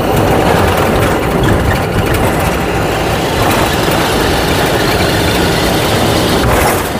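A heavy truck's diesel engine running under way, heard inside the cab with steady road noise. There is a short, louder rush of noise near the end.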